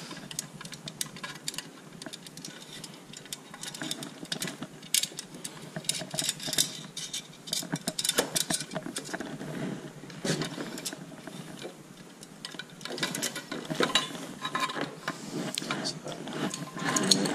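Irregular light metallic clicks and clinks of a screwdriver working the screws of a stainless steel tap box, and of the metal box being handled.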